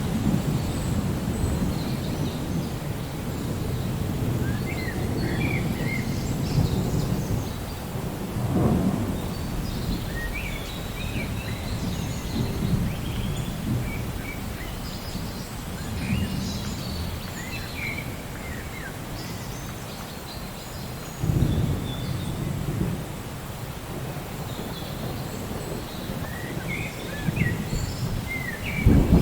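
Steady rain with low rolling thunder rumbling under it, swelling a few times. Short bird chirps come through now and then.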